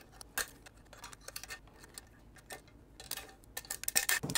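Small sharp metal clicks and ticks from pliers working at a spring inside a metal instrument housing, scattered at first and coming closer together near the end.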